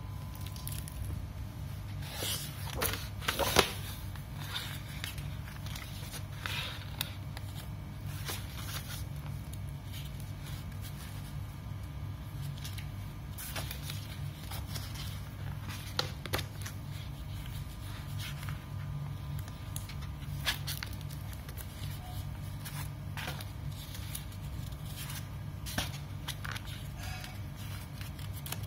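Thick wallpaper sample book being handled and its pages turned: scattered crackles and rustles of the heavy sample sheets, loudest about three seconds in, over a steady low hum.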